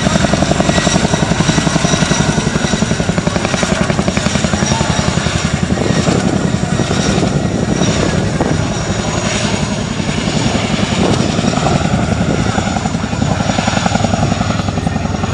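A helicopter flying, its rotor blades beating in a fast, even rhythm over a steady high whine. The beating is strongest for the first five or six seconds and then grows less distinct.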